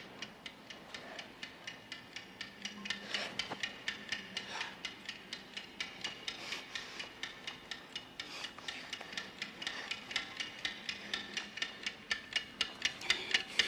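Clockwork ticking at about three ticks a second, growing slightly louder, with a faint scraping under it.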